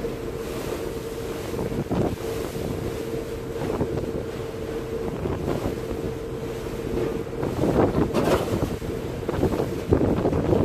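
Wind buffeting the camera microphone on the open deck of a moving river ferry, over the ferry's steady engine hum. The hum stops about seven seconds in, and the wind gusts louder toward the end.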